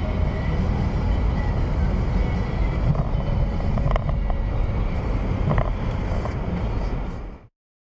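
A moving vehicle's road and wind noise: a steady low rumble, with a couple of light knocks about four and five and a half seconds in. It cuts off suddenly near the end.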